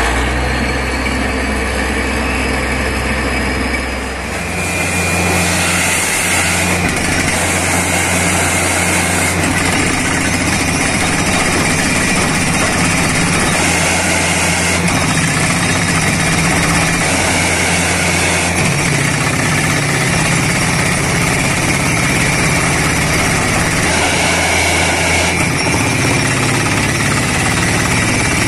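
Heavy diesel engine of a borewell air-compressor truck running. About four seconds in, the sound changes to the steady running of a truck-mounted borewell drilling rig and its compressor.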